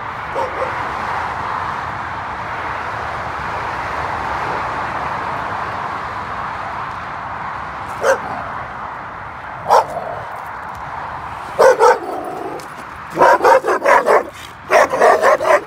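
A muzzled, dog-reactive bull-lurcher barking at another dog: a single bark about halfway through, another soon after, a quick pair, then a rapid run of barks near the end. A steady rushing noise fills the first part and fades as the barking picks up.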